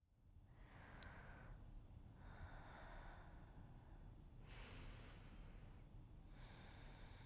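Faint, slow breathing: four drawn-out breaths about two seconds apart, each a second or so of airy noise, over a low steady hum.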